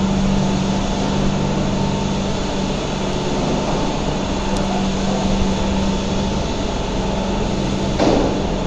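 Steady mechanical hum of milking-parlour machinery with a constant low drone, from the milking system running while cows are milked.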